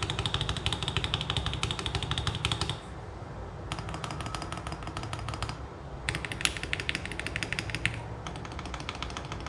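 Fast typing on a mechanical keyboard with lubed Akko Jelly Starfish linear switches: a rapid run of keystroke clacks. It breaks off after about three seconds and resumes in softer bursts with short pauses between.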